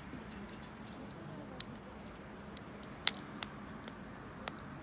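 Wood campfire burning, with a few sharp crackling pops from the burning wood over a low steady background; the loudest pop comes about three seconds in.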